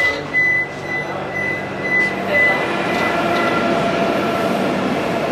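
The automatic door of a Vande Bharat Express coach sounding its high beeping warning tone as it releases at a station stop. The tone stops about two and a half seconds in, and a broader rush of noise follows as the door slides open.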